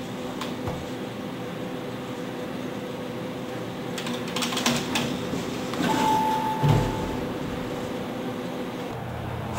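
Elevator arriving at a hallway landing: under a steady hum, a few light clicks, then a short single chime about six seconds in, followed by a low thump as the car stops and its doors open.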